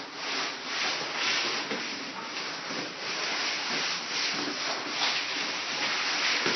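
Cardboard box scraping and rustling on a tiled floor as it is pushed about with a puppy inside, a continuous swelling and fading hiss.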